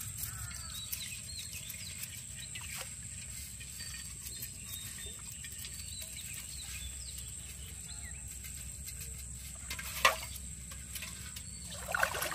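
Live prawns and small fish rustling and flicking as they are shaken out of a China net trap into a metal pot: a crackly, sizzle-like patter of many small clicks, with a sharper knock about ten seconds in.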